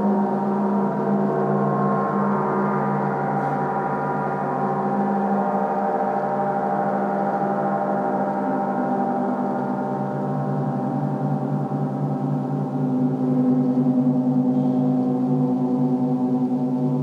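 Portable gong played for a gong bath, sounding as a sustained wash of many overlapping ringing tones with a fast shimmer. Its deepest tones grow stronger from about ten seconds in, and it swells slightly soon after.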